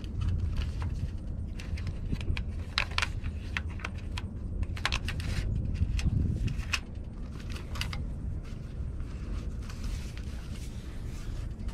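Irregular clicks and light rattles of hands untying and handling rope lashings and small plastic and metal fittings on an aluminium sailboat mast, over a steady low rumble of wind on the microphone.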